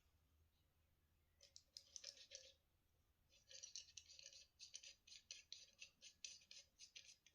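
Faint rattling and scratching of small objects being handled: a quick, irregular run of light clicks about a second and a half in, and again from about three and a half seconds on.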